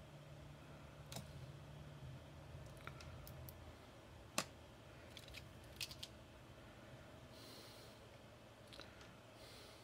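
Faint, scattered clicks and taps of multimeter test probes being handled and touched against a circuit board, the sharpest about four and a half seconds in. Two short soft hisses near the end.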